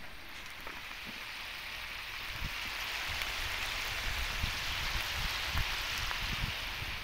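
Chopped meat frying in oil in a wok: a steady sizzle that swells about two seconds in and stays strong, with low bumps and rumbles underneath.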